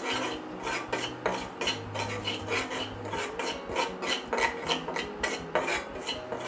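A flat metal spatula scraping and stirring a butter-and-flour mixture around an aluminium wok (karahi), in quick repeated scrapes about three a second.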